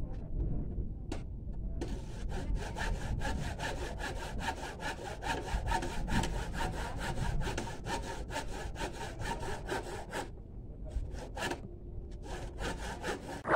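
Hand saw cutting into a palm trunk with rapid, even back-and-forth strokes, with two short pauses, one near the start and one about ten seconds in.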